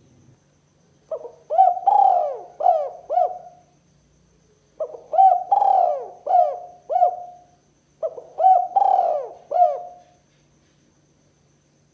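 Spotted dove (tekukur) cooing its song three times, about three and a half seconds apart. Each phrase is a short opening note, then a longer, louder coo, then two or three quicker coos.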